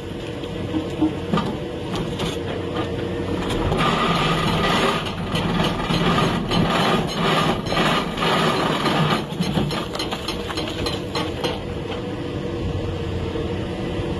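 Excavator-mounted hydraulic breaker hammer pounding rock in a rapid run of blows, over the steady running of the excavator's engine. The hammering is heaviest from about four seconds in and eases off a few seconds before the end.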